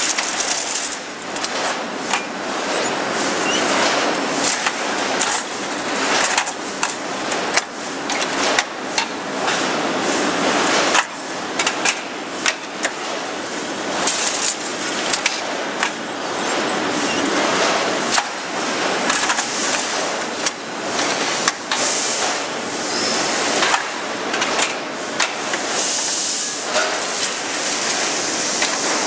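Steel-mill roller conveyor and bundling machinery handling bundles of steel bars: a dense, steady industrial din with frequent metallic knocks and rattles.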